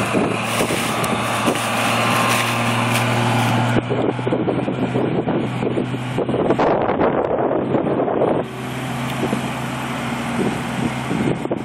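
Farm machinery engine running steadily under rough wind noise on the microphone. The sound changes abruptly about four seconds in and again past eight seconds, as between separate shots.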